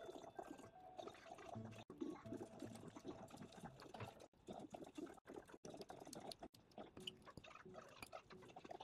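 Faint eating sounds: a metal fork clinking and scraping on a ceramic plate in many small, quick clicks.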